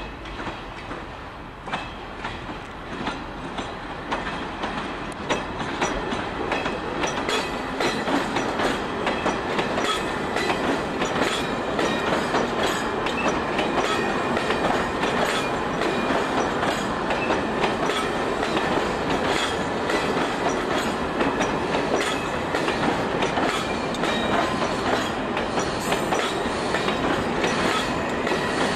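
Railway coaches rolling past on jointed track, their wheels clicking over the rail joints, with some wheel squeal. The sound grows louder over the first several seconds, then stays steady.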